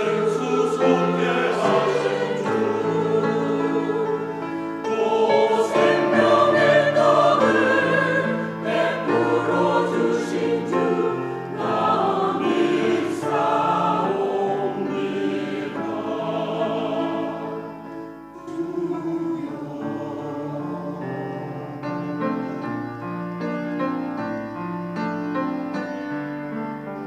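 Mixed church choir singing a Korean-language anthem in harmony, with long held notes. The singing turns softer about two-thirds of the way through.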